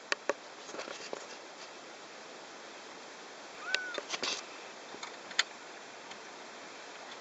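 Sharp clicks and handling knocks as the aux-input cable's connector is worked into its port on the back of a 2006 Mazda3 stereo head unit, with a brief chirp-like squeak about halfway through.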